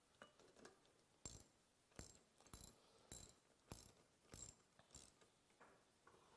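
Ratchet wrench clicking faintly, about ten short clicks a little under two a second, as the valve plate bolts are snugged lightly by hand before torquing.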